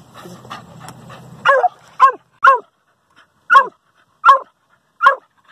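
Hunting dog barking at an armadillo holed up in its burrow: six short barks, each dropping in pitch, spaced irregularly. A scuffling, scraping noise comes before the first bark.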